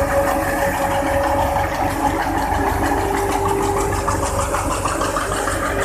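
Tractor-powered wheat thresher running steadily under load, its threshing drum and blower turning over the tractor's engine while chaff is blown out of the chute.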